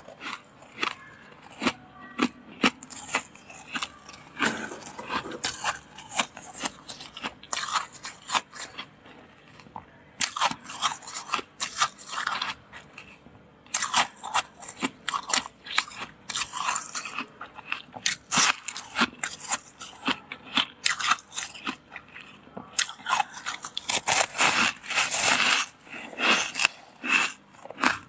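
Soft, powdery freezer frost crunching as it is bitten and chewed close to the microphone: many short, irregular crunches.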